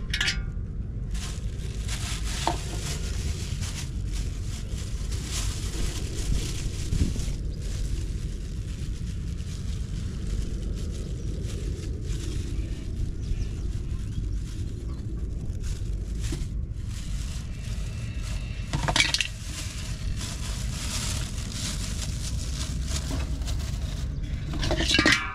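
Wind rumbling on the microphone, with a plastic bag crinkling and rustling as it is handled; two louder rustles come near the end.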